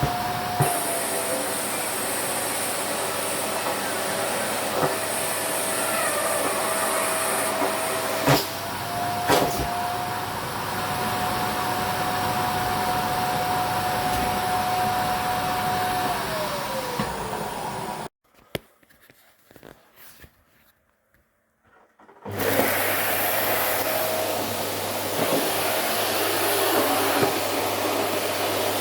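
Vacuum cleaner running with a steady rush and a motor whine that shifts in pitch as it pulls at a down jacket, with a couple of sharp clicks. About 17 s in the whine slides down and the cleaner goes quiet for about four seconds, then it runs again.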